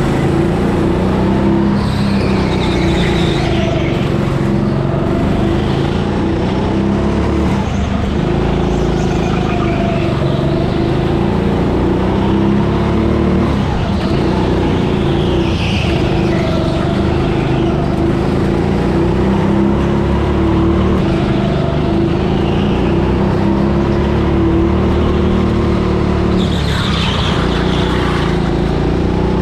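Go-kart running at speed from on board: a steady motor drone whose pitch rises and falls as the kart slows for corners and speeds up again.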